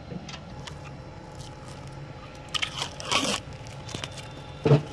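Metal mounting-bracket parts and a hex key being handled while a Nokia RRH's bracket is assembled: scattered clicks, a scraping rustle about three seconds in, and a heavy knock near the end, over a steady low hum.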